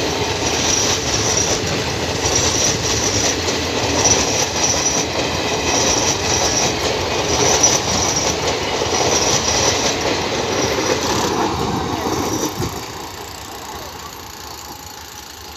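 Passenger train coaches rolling past on the rails, a steady rumble and clatter with a recurring high-pitched screech. The noise drops off about three-quarters of the way through as the last coach passes and the train moves away.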